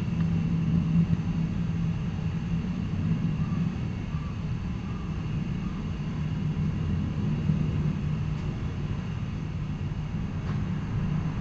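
A steady low mechanical hum with a constant droning tone, with a couple of faint clicks near the end.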